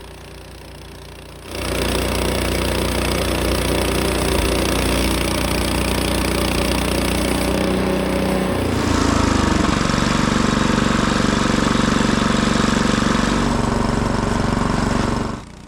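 Small gasoline engine of a Frontier OS18 portable bandsaw mill, running quietly at first and then abruptly much louder about a second and a half in. About nine seconds in, its note shifts deeper and louder. It cuts off suddenly near the end.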